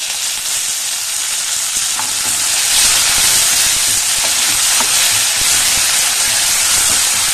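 Fresh curry leaves sizzling in hot coconut oil with roasting urad dal and coriander seeds, their moisture boiling off. The sizzle swells about three seconds in, with a few light knocks of a ladle stirring in the pan.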